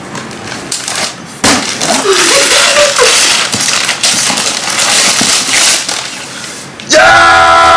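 Gift wrapping paper being torn and crumpled, a loud crackling rip that starts about a second and a half in. Near the end a loud pitched sound begins.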